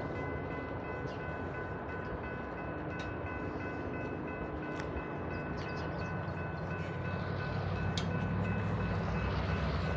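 Railroad crossing bell ringing steadily as a diesel locomotive approaches the crossing. The locomotive's low engine rumble grows louder over the last few seconds.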